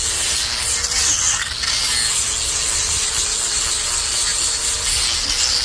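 Power sander working Western red cedar: a steady hiss of abrasive on wood over a motor whine whose pitch wavers slightly as the load changes.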